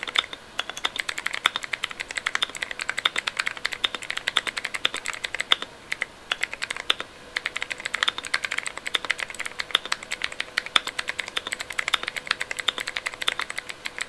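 Typing sound test on a Keychron Q1 mechanical keyboard with stock Outemu Blue clicky switches and cheap PBT keycaps, on a polycarbonate plate with foam and tape mods: a rapid, continuous clatter of sharp key clicks, with a brief pause about six and a half seconds in.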